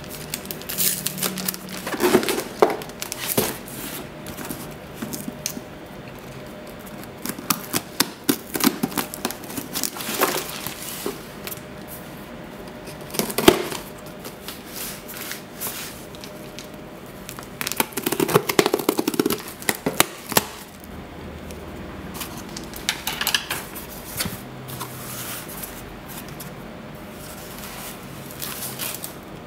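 Unpacking a cardboard shipping box: scissors snipping and plastic wrap crinkling as it is cut and pulled off, then parcel tape and cardboard flaps rustling as the box is opened. The sounds come in irregular bursts of crackling and clicks with short pauses between.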